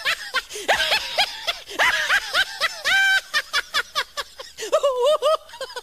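A person laughing in rapid, high-pitched bursts of snickering and chuckling.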